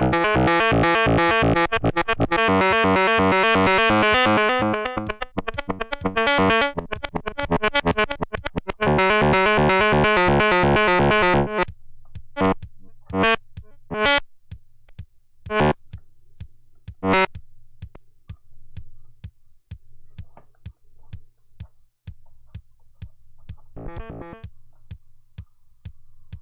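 Make Noise 0-Coast analogue synthesizer playing a fast arpeggiated pattern of rapid repeating notes, driven over MIDI by an arpeggiator. A little under halfway through the pattern stops, leaving a few separate short notes over a faint low hum.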